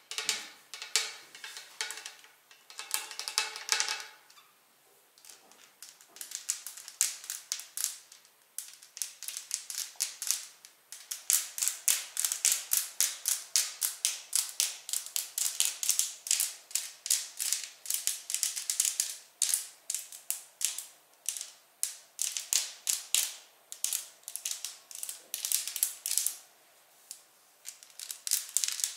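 Long fingernails tapping and clicking rapidly against each other and a small hard plastic object, in quick runs of sharp clicks with brief pauses. In the first few seconds a ringing tone sounds under the clicks.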